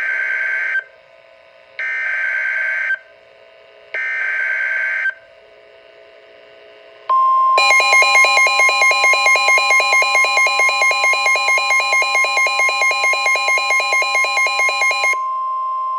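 NOAA Weather Radio Emergency Alert System tones. The SAME digital header plays as three short bursts of data screech, then after a pause comes the steady 1050 Hz warning alarm tone, with a second rapidly pulsing beep over most of it. Together they signal the start of a severe thunderstorm warning.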